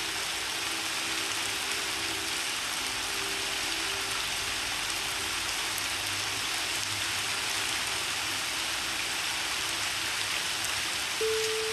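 Steady rain hiss from a rain-and-piano background track. A few soft held piano notes fade away over the first seconds, and a new piano note sounds near the end.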